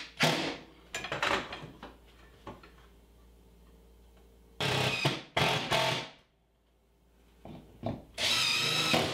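Cordless drill/driver running in several short bursts, driving screws to fix a wooden strip to the shop wall; the last burst has a whining pitch.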